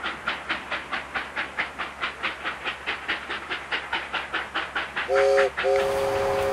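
Steam train sound effect: steady rhythmic chugging at about five puffs a second, then a short chord-like whistle blast about five seconds in, followed straight away by a longer held blast.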